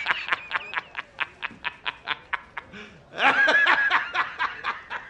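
A man's hearty, cackling laugh: a rapid string of short 'ha' bursts, about five a second, broken about three seconds in by a higher, drawn-out whoop before the bursts carry on.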